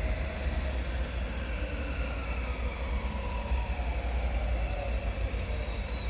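Freight train of Eas open wagons rolling past, a steady rumble with faint tones that slide slowly downward in pitch.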